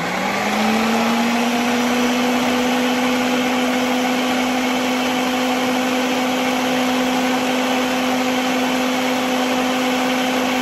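Countertop blender running on its low setting, its motor rising in pitch in the first second and then holding a steady whine while it blends the Caesar dressing base.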